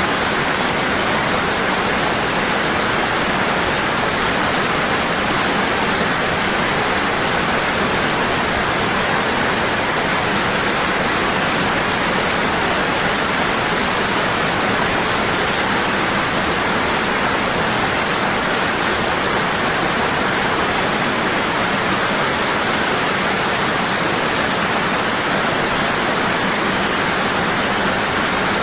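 Waterfall, water falling hard and constant into a pool, as a steady, unbroken rush.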